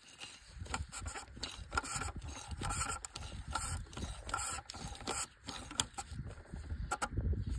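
Ratchet turning a long socket extension down through the wheel-well liner, working back and forth in strokes about once a second with scraping and clicking.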